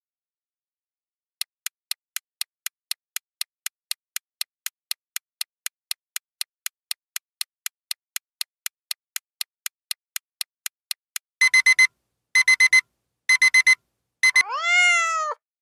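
Quiz countdown timer sound effect: fast, even clock ticking for about ten seconds, then an alarm-clock ring in three short bursts and a brief fourth, ending on a single tone that rises and then falls.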